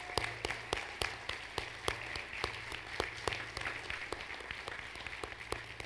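Audience applauding, with one pair of hands close by standing out in sharp, regular claps about three a second over the crowd's clapping. The applause dies down near the end.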